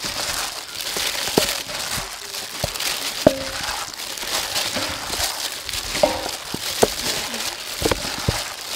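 Plastic food-prep gloves crinkling as they knead floured chicken drumsticks with egg in a metal bowl. Scattered sharp clicks and knocks run through it.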